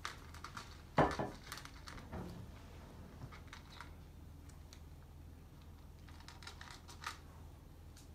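A domestic cat crunching dry food from a ceramic bowl: small irregular crunches and clicks, with a louder knock about a second in and another near seven seconds, over a faint low hum.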